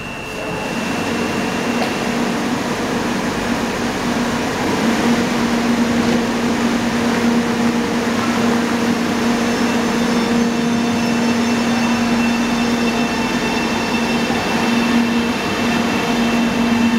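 Arlanda Express electric train in an underground station, pulling out from the platform. A steady motor hum grows stronger about a quarter of the way in, and higher whining tones join it about halfway through as the train gets moving.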